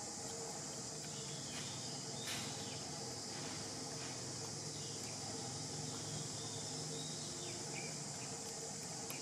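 Steady high-pitched drone of an insect chorus, with a few faint clicks and short chirps over it; the clearest click comes about two seconds in.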